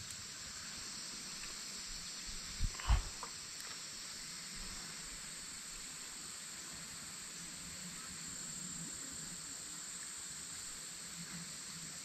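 Steady high-pitched insect chorus, with a brief knock about three seconds in.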